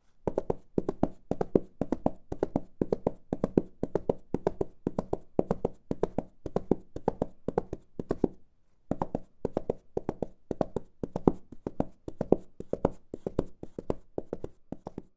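Quick run of knocks or taps on a hard surface, about four a second and uneven in strength, with a brief pause a little past halfway.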